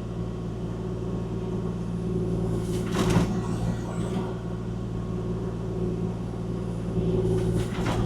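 Kubota KX040-4 mini excavator's diesel engine running steadily, with a brief clunk about three seconds in.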